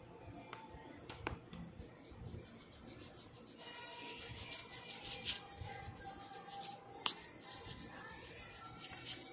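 Pencil rubbing and scratching on sketchbook paper in quick repeated strokes, with a sharp tap about seven seconds in.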